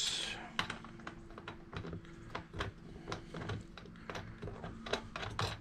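Steel bolts clicking and tapping against a metal bracket and the hard plastic cart bed as they are pushed into their holes by hand: a string of irregular small clicks, a few a second.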